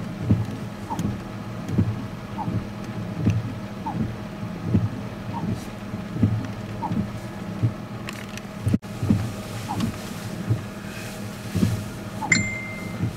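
Running vehicle heard from inside: a steady low engine hum with a regular thump about every three-quarters of a second, and a short high beep near the end.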